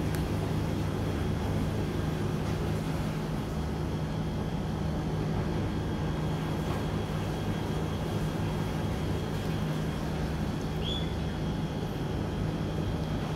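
Steady low hum of a running motor, with a faint steady high tone over it and one brief chirp about eleven seconds in.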